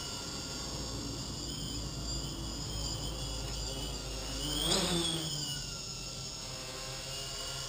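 Small quadcopter's brushless motors and propellers whining steadily while it hovers with barometric altitude hold on. About two-thirds of the way in, the whine rises in pitch and loudness to a peak and falls back.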